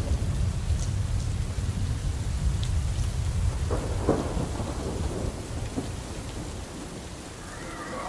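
A deep, continuous low rumble that slowly fades away over the last few seconds, with a couple of faint soft knocks about four seconds in.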